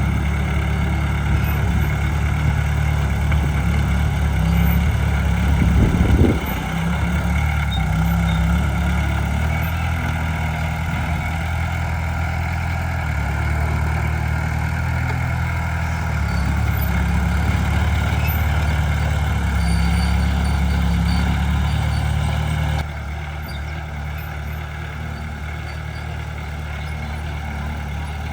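Heavy diesel engine of earthmoving equipment running steadily, swelling briefly about six seconds in, then dropping suddenly to a quieter level near the end.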